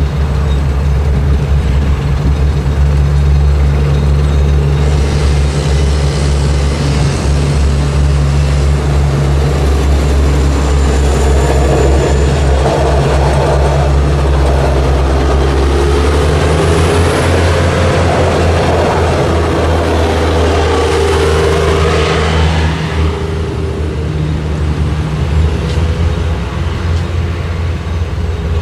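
Stadler diesel railcar crossing a level crossing: a steady low engine hum, with wheel and rail noise swelling as the train goes past in the middle. The engine note shifts just after the middle, and the noise eases in the last few seconds.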